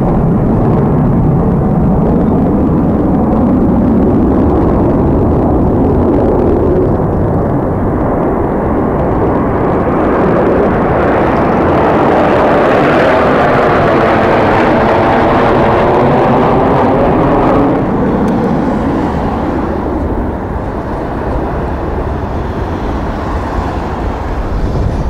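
Formation of Su-25SM attack jets flying low overhead: a loud, rushing jet roar that swells as they pass, with a sweeping, phasing whoosh at its peak, then drops off suddenly about three-quarters of the way through. Gusty wind rumbles on the microphone underneath.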